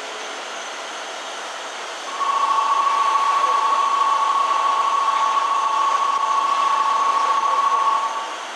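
Station departure buzzer sounding one steady two-tone electronic note for about six seconds, starting about two seconds in, over the steady hiss of a Tokyo Metro 10000 series electric train standing at the platform. It is the signal that the train is about to leave.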